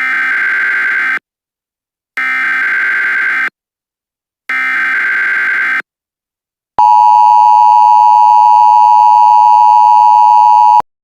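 Emergency Alert System signal. Three bursts of chirping digital data, each about a second long with a second of silence between them (the SAME header that opens an alert), then the louder steady two-tone attention signal for about four seconds, cutting off abruptly.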